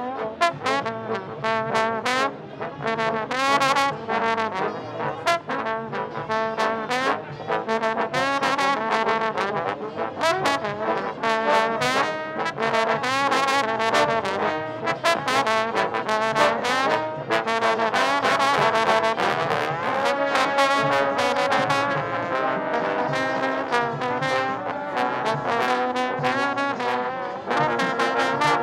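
B.A.C. trombone played in fast runs of short, cleanly attacked notes.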